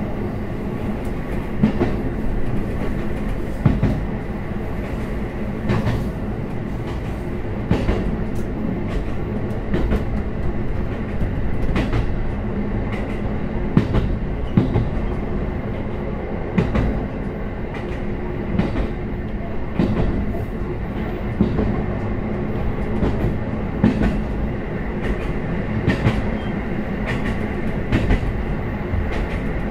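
KiHa 54 diesel railcar running, heard from on board: a steady diesel engine drone, with the wheels clacking over rail joints about every two seconds.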